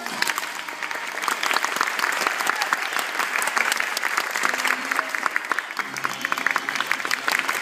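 Many people clapping: dense, steady applause that starts abruptly as the music stops.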